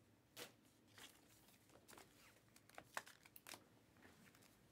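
Near silence broken by a few faint clicks and rustles of trading cards being handled and slid off a stack.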